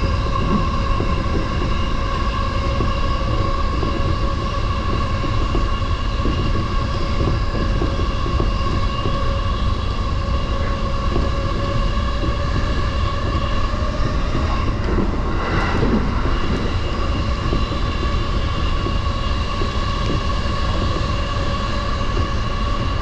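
Electric commuter train of the JR Yokohama Line running at steady speed, heard from inside the car: a steady rumble of wheels on rail under a constant motor whine, with a brief rattle about two-thirds of the way through.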